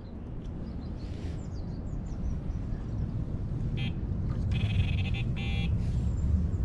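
Wind rumbling on the microphone, with three short high buzzing tones in the second half, the middle one the longest.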